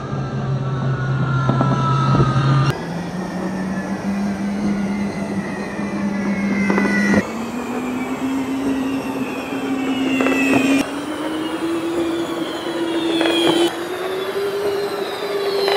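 Electric toy-car motors whining steadily. The hum jumps up in pitch in four steps and grows louder within each stretch, as the footage moves from very slow playback toward normal speed.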